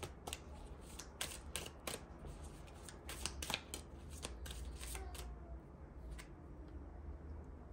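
A deck of tarot cards being shuffled by hand: a quick run of papery flicks and taps through the first half, thinning out to a few scattered ones and then stopping.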